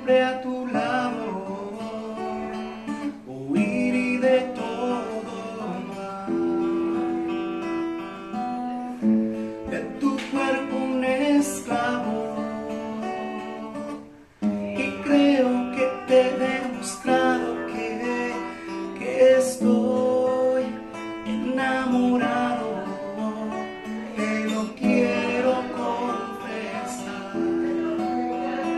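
A man singing a Spanish-language song while playing an acoustic guitar, with a brief break in the sound about halfway through.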